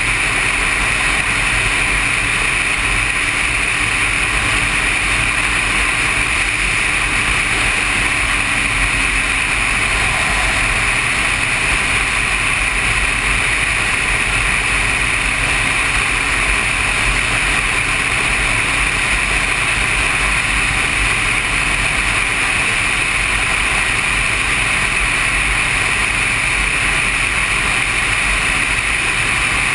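Sport motorcycle cruising steadily at highway speed, heard from a camera mounted on the bike: the engine's steady drone mixed with rushing wind.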